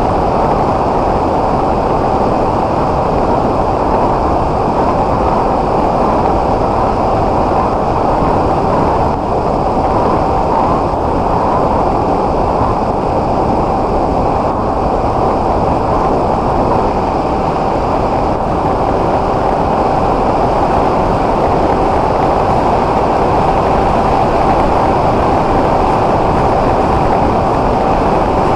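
Loud, steady wind rush over the onboard camera of an S800 FPV flying wing in flight, with a steady whine from its electric motor and propeller held at one pitch. A fainter, lower second tone joins about two-thirds of the way through.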